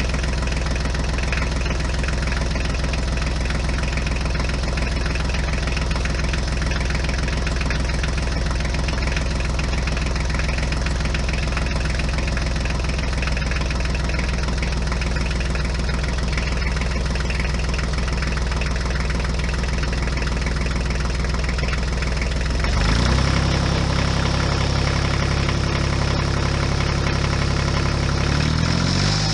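A large engine idling steadily with a knocking note. About 23 seconds in it revs up and holds at a higher speed, then drops back down near the end.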